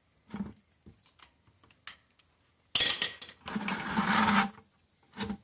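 Socket wrench on a long extension working a drain plug loose on the tractor's oil case: scattered metal clicks, a loud sharp clack about three seconds in, then about a second of rapid mechanical clicking and a last knock near the end.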